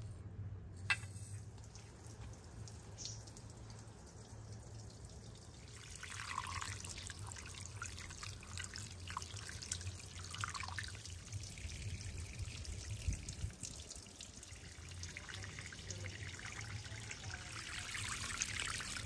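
Water spraying from a garden hose nozzle into an enamel pot while rice is rubbed and rinsed by hand, the splashing growing louder toward the end. A single sharp click comes about a second in.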